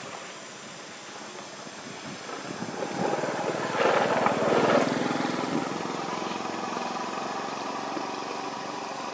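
A motor vehicle's engine passing: the noise swells to a peak about four to five seconds in, then settles to a steady hum.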